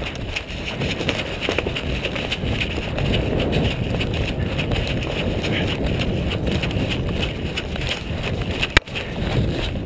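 Running footsteps crunching through dry leaves and twigs on the forest floor, with wind buffeting the head-mounted camera's microphone. A single sharp click near the end.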